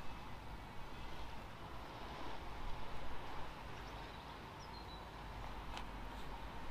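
Steady outdoor background noise, a low rumble with hiss, with a faint short high chirp about four and a half seconds in and a faint click near the end.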